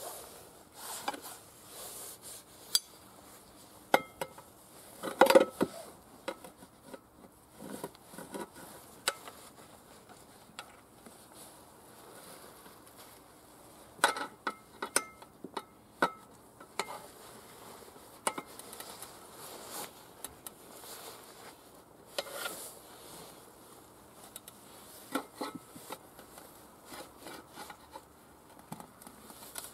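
Steel tyre levers clinking and scraping against a tractor's steel wheel rim while a front tyre bead is levered over the rim, in irregular knocks, some ringing briefly. The loudest clatter comes about five seconds in.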